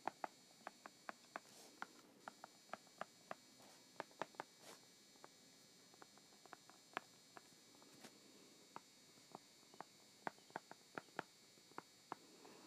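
Faint, irregular clicks of a stylus tapping on an iPad's glass screen while words are handwritten, about three a second.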